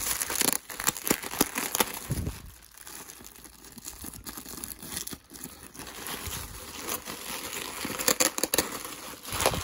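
Plastic bubble wrap crinkling and rustling as it is pulled and unwrapped by hand. It comes in irregular crackles, busiest near the start and again near the end, with a quieter stretch in the middle.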